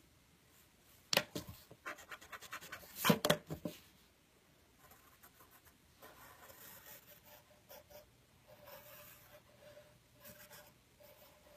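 Pencil drawing on paper: a faint, uneven scratching as lines are sketched, with two clusters of sharp clicks about a second and three seconds in.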